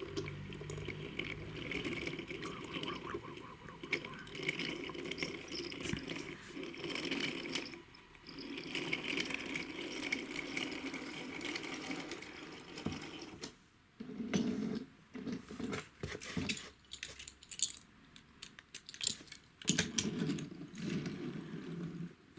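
A small mechanism running with a whir and many light clicks and rattles, pausing briefly a few times.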